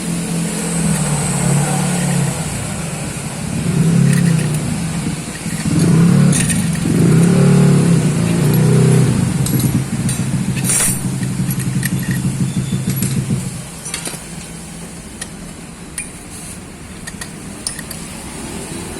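A motorcycle engine running with a steady note, revved up and back down a few times in the middle. The engine sound drops away about two-thirds of the way through, leaving fainter clicks and knocks.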